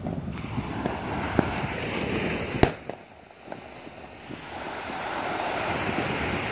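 Distant fireworks going off in scattered sharp bangs over a steady rush of wind and surf; the loudest crack comes about two and a half seconds in.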